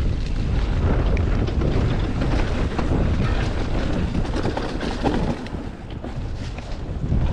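Wind buffeting the microphone of a camera on a mountain bike riding fast down a dirt trail, with the tyres rolling and the bike knocking and rattling over bumps. It eases briefly about three-quarters through.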